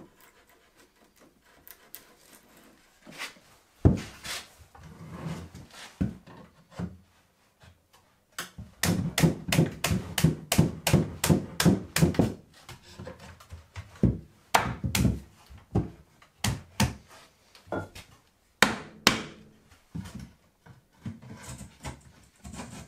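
Hand woodworking on a wooden table frame: a sharp wooden knock about four seconds in, then a quick run of about twenty light strikes, and scattered wooden knocks and taps after it, as the new rail joint is cut and fitted.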